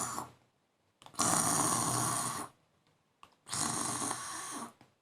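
Mimicked snoring for a sleeping man: a long snore fading just after the start, then two more long snores with short pauses between.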